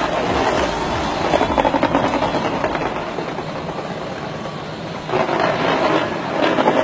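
Fireworks crackling in a dense, continuous rapid barrage of small pops, easing off a little and then swelling again about five seconds in.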